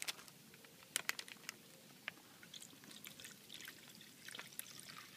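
Orange drink poured from a clear plastic MRE beverage bag into a small plastic cup, a faint trickle of liquid, with a few light clicks about a second in.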